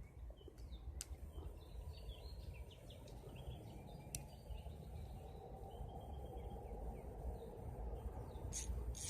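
Faint outdoor ambience: a steady low rumble with scattered faint bird chirps, and two sharp clicks about a second and four seconds in.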